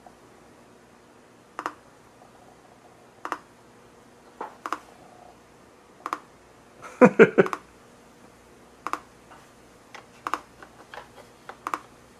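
NE555 'raindrop' circuit kit blipping through a small speaker. Short drip-like blips come about every second and a half at first, then faster and closer together toward the end as the rate is turned up. A louder cluster of knocks comes about seven seconds in.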